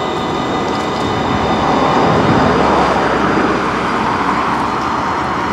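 HTM RandstadRail tram, an Alstom RegioCitadis, approaching along the track: wheels on rails and running noise swelling to their loudest about two to three seconds in, then easing.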